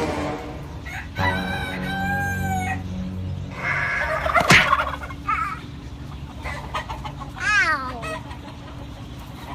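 Rooster crowing, one long call starting about a second in, with chickens clucking and a shorter call falling in pitch later on. A sharp knock about halfway through is the loudest sound.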